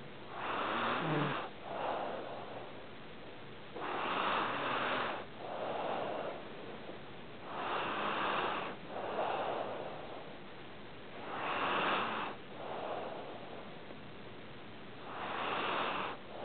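A sleeping pet snoring: five noisy snores, one about every four seconds, each a louder rasp followed straight away by a softer one.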